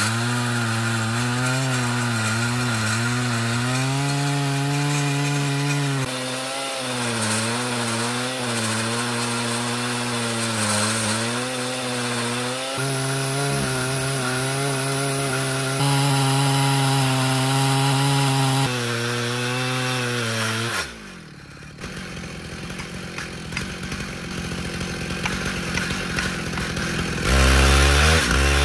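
Chainsaw in a chainsaw mill ripping through an oak stump, the engine running hard under load with its pitch wavering as it cuts. About 21 seconds in the revs fall away sharply and the sound drops, then builds again and is back loud near the end.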